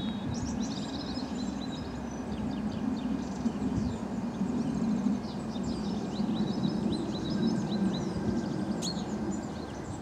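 A male chaffinch singing and chirping in short high notes throughout, over a steady low rumble of background noise.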